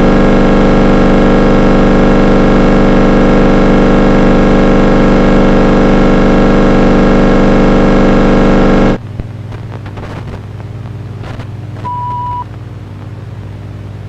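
Loud, harsh, steady electronic buzzing tone that cuts off abruptly about nine seconds in, leaving a low hum with faint noise. A short high beep sounds about three seconds after the cut.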